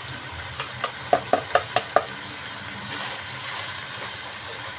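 Chicken cubes and chopped onion sizzling in oil and butter in a pot while being stirred with a spoon, with about six quick knocks against the pot in the first two seconds.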